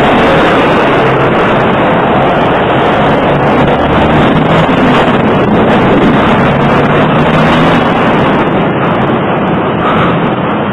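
Loud, steady city street traffic noise, with vehicle engines running.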